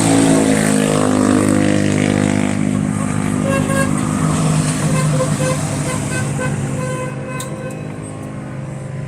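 A motor vehicle's engine running steadily, loudest at first, then slowly fading away toward the end.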